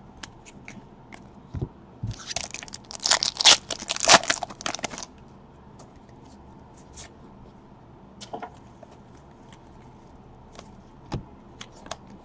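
Trading cards being handled and slid through by hand: a dense burst of crinkling and scraping from about two to five seconds in, then scattered faint clicks and taps.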